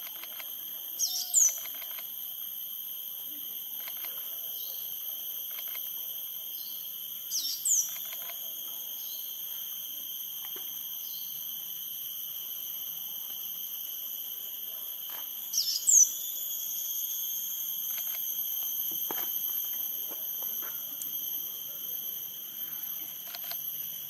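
Female copper-throated sunbird calling: three short, sharp calls several seconds apart, each a quick pair of high notes falling in pitch. A steady high-pitched drone runs underneath.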